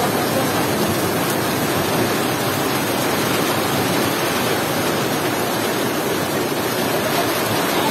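Heavy summer rain pouring steadily on trees and grass, a loud, even hiss.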